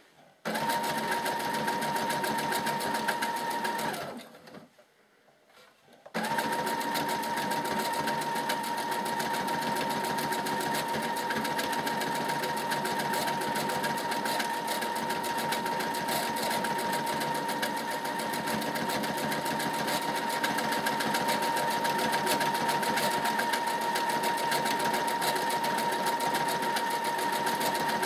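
Brother computerised sewing machine stitching a decorative pattern through calico: a steady motor whine with rapid needle ticking. It runs for about three and a half seconds, stops for about two, then starts again and runs on without a break.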